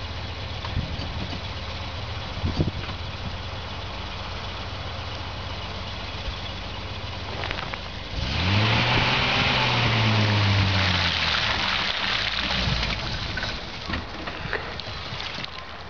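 Engine of a Volvo C304 (TGB 13) six-wheel-drive truck running steadily. About eight seconds in it revs up for roughly four seconds with a loud rushing noise, then drops back.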